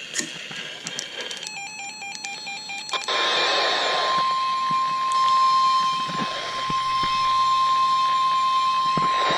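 NOAA Weather Radio emergency alert: a short burst of rapid digital data tones, then the steady 1050 Hz warning alarm tone held for about six seconds, which announces a severe thunderstorm warning.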